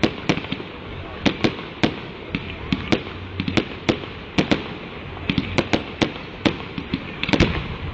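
Aerial fireworks bursting in the sky: a rapid, irregular string of sharp bangs, about three a second, from the bursting shells.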